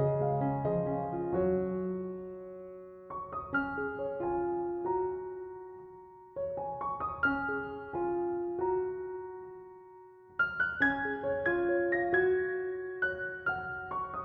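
Soft background piano music: slow phrases of struck notes that ring and fade, each phrase dying away before the next begins.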